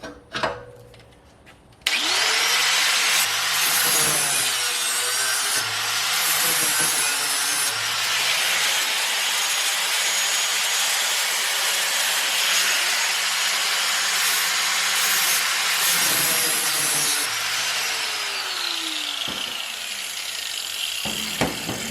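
Handheld grinder with a flap wheel grinding a steel lawn mower blade, sharpening the blade and smoothing down burrs. It starts abruptly about two seconds in, runs steadily, and its pitch falls over the last few seconds before it stops near the end.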